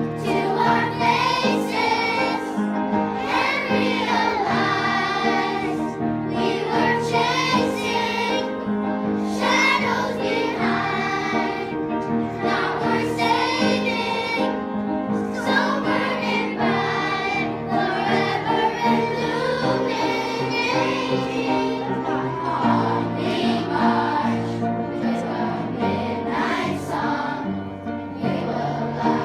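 A choir singing with instrumental accompaniment, the voices moving over low held chords that change every couple of seconds.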